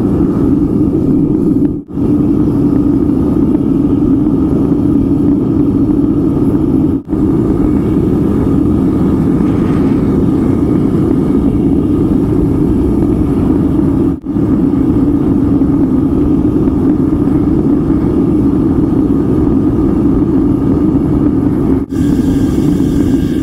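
Melting furnace running at full fire with a steady low rumble, heating a graphite crucible of refired slag at white heat while the melt still boils off gases. The sound breaks off for an instant four times.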